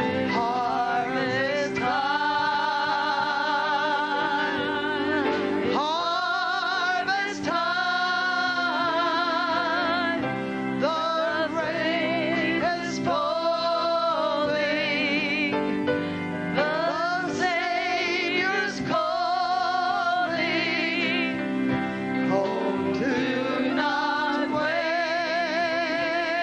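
Wordless, melismatic singing with a wide vibrato, the voice sliding between long held notes over sustained chords.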